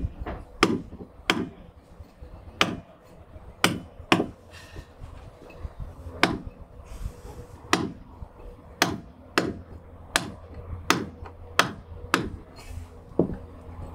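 Wooden hammer striking a caulking iron, about twenty sharp, unevenly spaced knocks, driving oakum into a deck seam. This is the hardening-up pass, packing the oakum down hard so the seam stops leaking.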